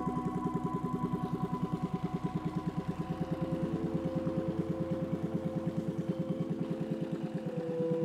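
Long-tail boat engine running with a rapid, even pulse, under held tones of ambient music; the engine fades out near the end.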